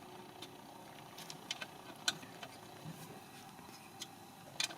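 Faint, irregular clicks and taps of a hand wrench and hardware being handled while fasteners are tightened, with a close pair of clicks near the end.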